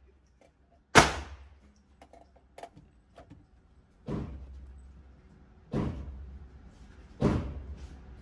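Four gunshots from a 7.62x39 AR-15 pistol: one loud shot about a second in, then three more about a second and a half apart near the end, each with a short echoing tail. A few faint clicks between the first and second shots.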